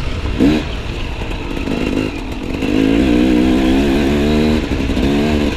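Enduro motorcycle engine running under varying throttle as the bike is ridden off-road. There is a short rev blip about half a second in, and louder, rising and falling revs in the second half.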